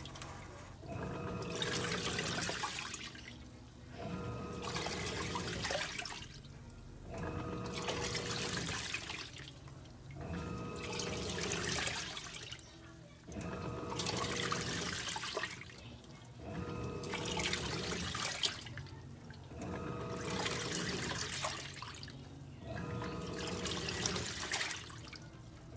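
Electrolux LTE06 washing machine washing: water sloshing in repeated strokes every two to three seconds, with the motor humming in each stroke and brief pauses as the wash action reverses.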